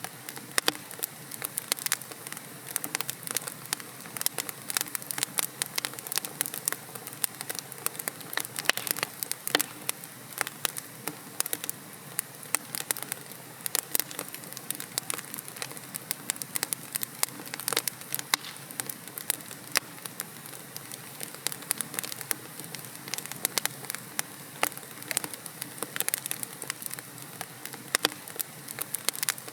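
Wood logs burning in a fireplace: a steady hiss of flame with dense, irregular sharp crackles and pops throughout.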